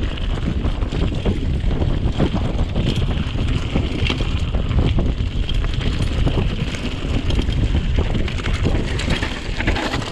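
Mountain bike rolling down a dirt forest trail: wind buffeting the action-camera microphone, with the bike rattling and clicking over bumps and roots.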